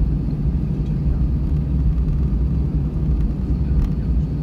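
Airbus A320's CFM56 turbofan engines running at taxi power, heard inside the cabin from a window seat over the wing: a steady low rumble.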